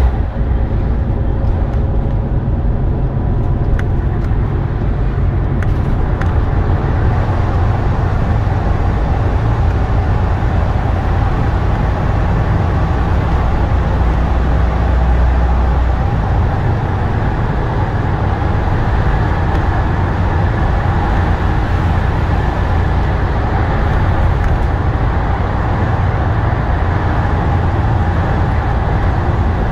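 Mitsubishi Fuso Aerostar city bus (2PG-MP38FK), with its four-cylinder diesel, running through a road tunnel, heard from inside the cabin: a steady rumble of engine and tyres.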